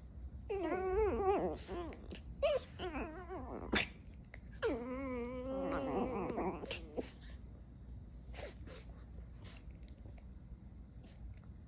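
Aussie poo puppy whining and whimpering in several wavering high cries, then only faint scattered clicks for the last few seconds.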